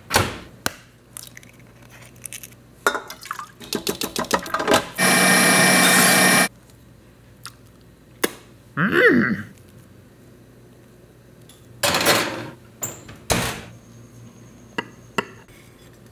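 Kitchen clinks and knocks, then a KitchenAid stand mixer whipping meringue with its wire whisk, running loud and steady for about a second and a half. A short swooping sound follows a few seconds later, then more knocks and scrapes.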